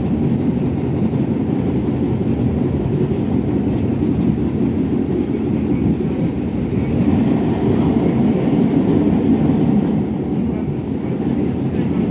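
R68A subway train running at speed, heard from on board: a loud, steady rumble of the cars and wheels on the track, swelling slightly partway through.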